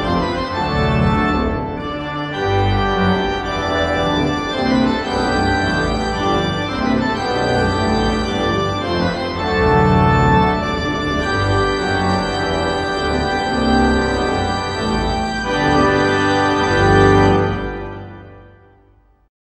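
Pipe organ playing a piece in sustained full chords. It swells to its loudest on a final chord about seventeen seconds in, which then fades away to silence.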